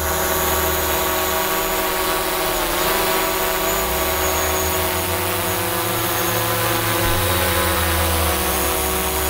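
DJI Mavic Pro quadcopter hovering overhead on LED low-noise propellers, its four motors and props giving a steady buzzing whine made of several tones together. The pitch dips briefly and recovers about three seconds in.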